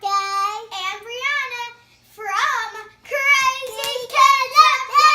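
A young child singing in a high voice: three short sung phrases with brief breaks between them.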